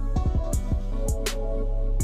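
Background music: an instrumental track with a steady bass line and a regular drum beat.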